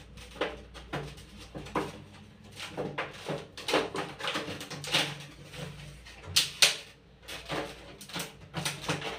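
Clear plastic packaging of a replacement toilet part crinkling and crackling in irregular bursts as it is handled and opened, with the loudest crackles about two-thirds of the way in.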